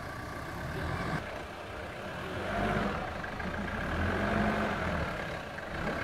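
Mitsubishi Pajero SUV engine running at low speed as it crawls over rocks, the engine note swelling twice.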